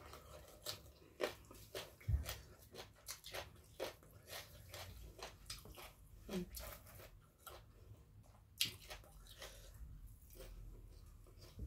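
A person chewing and crunching food: a run of irregular, sharp crunches and mouth clicks, with a soft low thump about two seconds in.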